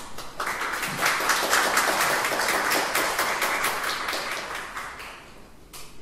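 Audience applauding: many people clapping, starting about half a second in and fading out near the end.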